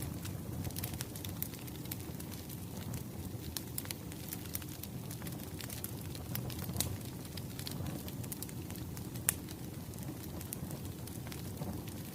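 Wood fire burning: a steady low rumble with frequent scattered sharp crackles and pops.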